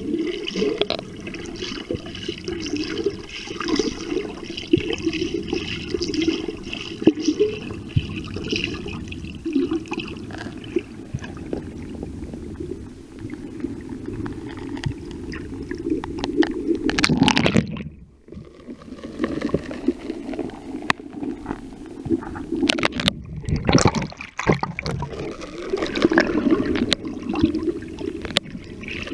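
Muffled sloshing and gurgling of seawater against a camera held underwater, with faint steady high tones in the first third. The sound drops away briefly about two-thirds of the way in and again shortly after.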